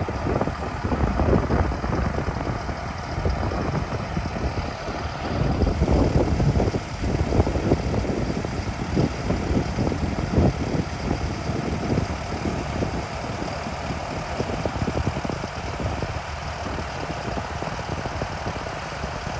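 A vehicle engine idling, with uneven low rumbling.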